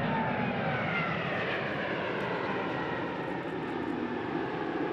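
Boeing 787 Dreamliner's Rolls-Royce Trent 1000 turbofans at takeoff power during the takeoff roll and rotation. A steady jet roar carries an engine whine that falls in pitch as the airliner passes.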